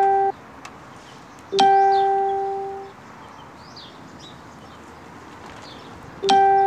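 A single ringing musical note sounded twice at the same pitch: the first is stopped short just after the start, the second about a second and a half in rings out and fades over about a second and a half. Faint high chirps in the background.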